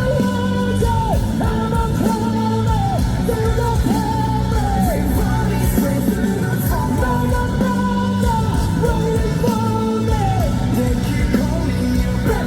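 Rock band playing loudly live, with singing over the music. A high melody line slides up and down in pitch throughout.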